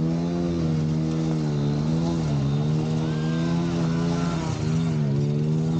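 Small motorcycle engine revving hard and steadily, its pitch dipping briefly a few times as the throttle is eased and opened again.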